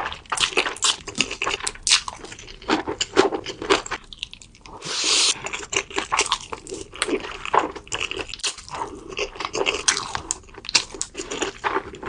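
Close-miked eating of cream pasta: a steady run of wet chewing and mouth clicks, with one longer hissing sound about five seconds in.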